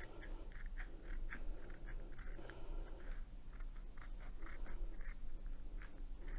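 Scissors cutting along the edge of a diamond painting canvas in a run of short snips, about two a second.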